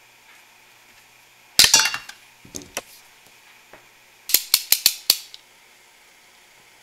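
Sharp snips and clicks of hand tools cutting the plug end off a computer power cord and starting to strip it: one loud snap about one and a half seconds in, a few softer clicks, then a quick run of five sharp clicks a little past four seconds in.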